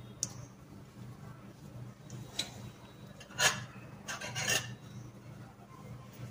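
A hand mixing soft oat-flour dough in a stainless steel bowl: short rubbing and scraping sounds, with a few louder scrapes near the middle, over a low steady hum.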